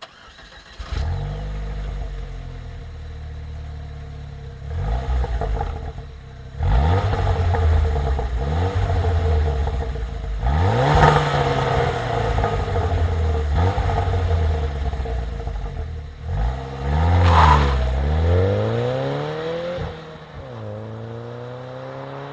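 Opel Vectra C GTS 2.0 turbo four-cylinder (Z20NET) with its stock exhaust, started about a second in and then free-revved several times, each rev rising and falling back to idle. The highest rev comes near the end and drops back to a steady idle.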